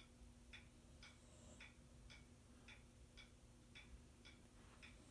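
Faint, even ticking at about two ticks a second, over a low steady hum.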